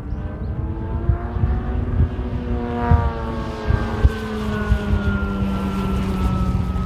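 Large electric RC aerobatic plane, a SLICK 580 scale model, flying by: the whine of its electric motor and propeller rises in pitch for about three seconds and then slowly falls as it passes. Wind rumbles on the microphone throughout.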